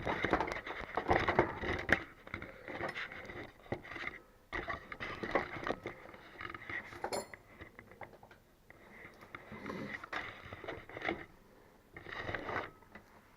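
Irregular clinks, knocks and scraping from metal parts and tools being handled and set down on a hard surface, with one brief high ring about seven seconds in.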